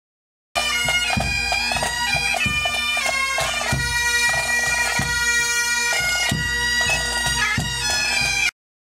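Highland pipe band playing: bagpipes with a steady drone under the chanter's melody, and a bass drum struck about every second and a quarter. The music starts suddenly about half a second in and cuts off abruptly near the end.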